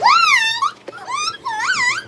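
Baby squealing in two high-pitched cries that swoop up and down in pitch, the second starting about a second and a half in.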